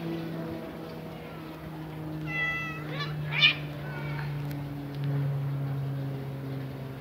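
Two street cats in a standoff: a low, drawn-out growl runs underneath and drops a little in pitch about five seconds in. A short meow comes about two and a half seconds in, then a loud, harsh cat cry around three and a half seconds.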